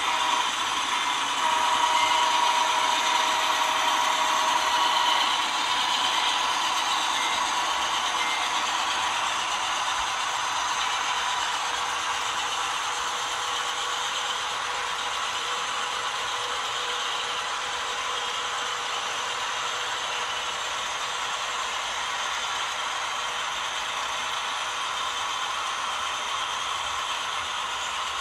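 Model coal train of empty CNW hoppers rolling along the layout track, a steady mechanical rattle of wheels and cars. Several steady tones sound together for a few seconds near the start.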